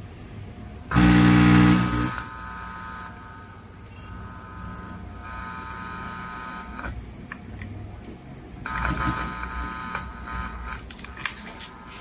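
Buzzing test signal coming out of a stereo power amplifier under test as a signal is fed into its input: a loud buzz about a second in, then quieter buzzing twice more with scattered clicks.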